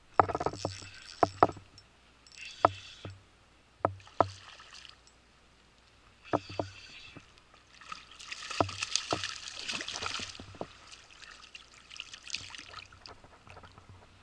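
Water splashing and sloshing in bursts, broken by sharp clicks and knocks. The longest and loudest splashing comes about eight seconds in, as the surface is broken close in.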